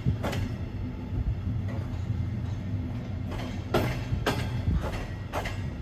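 Passenger coach rolling slowly along the track, heard from inside the couchette car's corridor: a steady low rumble with a few irregular sharp clacks as the wheels cross rail joints and points, most of them in the second half.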